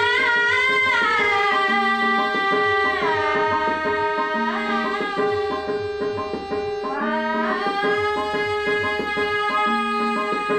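Indian classical-style music: a melody of long held notes with pitch slides over a steady drone, with tabla strokes keeping a repeating rhythm.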